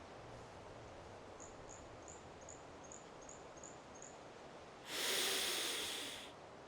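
Faint woodland ambience with a run of eight high, evenly spaced chirps, about three a second, then a long deep breath in through the nose that rushes loudly for about a second and a half and fades.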